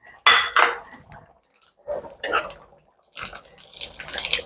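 A metal slotted spatula scraping and tossing dry, crumbly ingredients around a non-stick wok, in three separate bouts of stirring.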